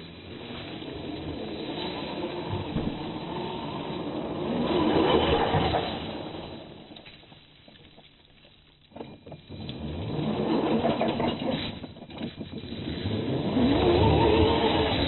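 Battery-powered Losi Rock Rey RC truck's electric motor and drivetrain whining up and down in pitch as it is driven, loudest in three bursts of acceleration about five, ten and fourteen seconds in, with a short lull near eight seconds.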